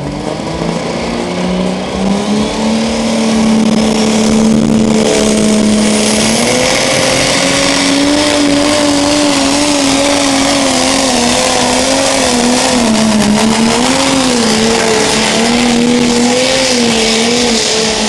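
Fendt 930 pulling tractor's 8-litre MAN diesel engine revving up and then running loud at full throttle under heavy load as it drags the pulling sled down the track, its pitch wavering up and down through the second half of the run.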